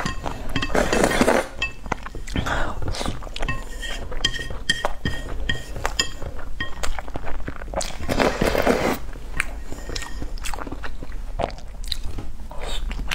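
Close-miked eating of spicy instant noodles and boiled eggs: chewing and biting, with two longer slurping sucks, one about a second in and one around eight seconds in, and light clicks between.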